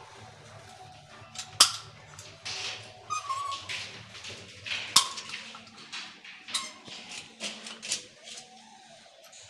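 A hand caulking gun laying silicone sealant along a uPVC window frame: two sharp, loud clicks of the gun about one and a half and five seconds in, among softer clicks and short hissing scrapes as the sealant is pressed out and the nozzle drawn along the joint.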